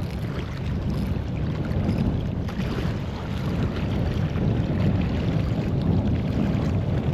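Wind buffeting the action camera's microphone, a steady gusting rumble.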